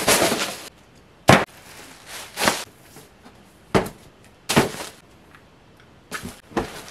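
Gift-wrapping supplies tossed down onto a bed one after another. A plastic shopping bag rustles as it lands, then come about six short thuds and crinkles as a roll of wrapping paper and other items drop.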